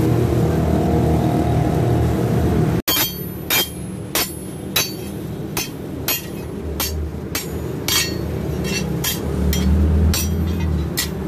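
Hammer blows on a hand chisel cutting the extra edges off an iron meat-cleaver blank on an anvil block: sharp metallic strikes with a bright ring, about two a second, starting about three seconds in. A steady low hum runs underneath.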